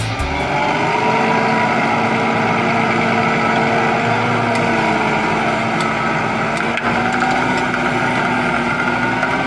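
Dubbed sound effect of heavy farm machinery, a tractor or forage harvester engine running steadily under load, with a held whining tone over the engine noise.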